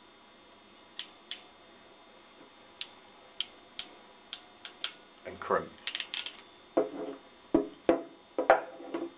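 Small hand crimping tool for wire-rope ferrules being worked, its steel jaws and removable dies giving sharp metallic clicks. The clicks come singly at first, then turn into a quicker run of louder clicks and short rasps from about halfway through.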